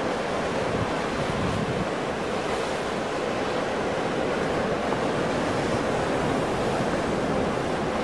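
Large ocean waves breaking into surf, a continuous steady wash of noise with no single crash standing out.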